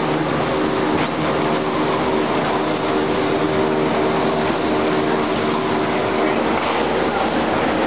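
A paperboard sheet-cutting machine running steadily as a continuous brown board sheet feeds through its rollers. It makes a loud, even mechanical drone with a constant hum.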